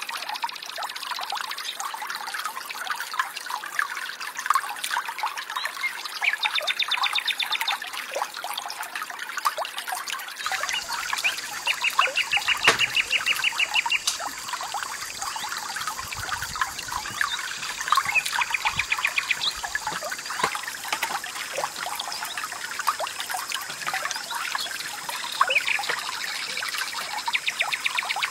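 A small stream trickling steadily, with birds chirping and a fast trill of a second or two heard several times.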